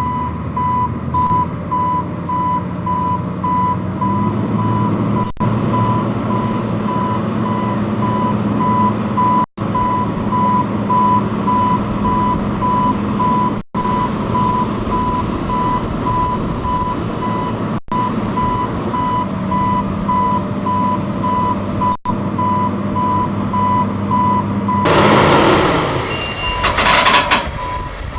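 Bulldozer's diesel engine running while it reverses slowly, its backup alarm beeping steadily in one high tone. The engine note rises a few seconds in, and near the end a loud burst of noise briefly covers it.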